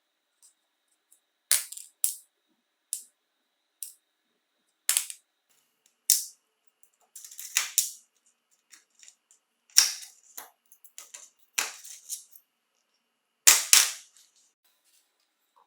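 Irregular sharp clicks and clacks of small hard parts and tools being handled and set down, some in quick pairs, the loudest near the end.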